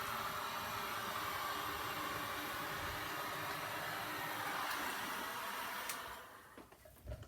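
A steady rushing hiss of blowing air that dies away about six seconds in, followed by a soft low thump near the end.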